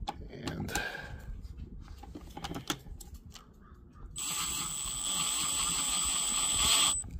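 Milwaukee Fuel brushless cordless driver running a bolt into the charge port assembly: a steady high whine starting about four seconds in and stopping abruptly about three seconds later. A few light handling clicks come before it.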